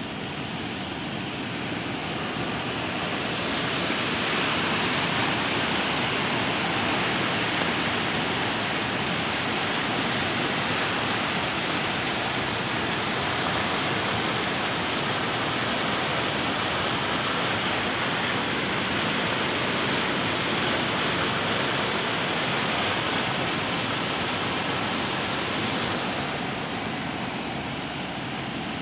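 A river in flood, swollen by rain, rushing and churning in a steady noise of turbulent water; it grows louder about four seconds in and eases a couple of seconds before the end.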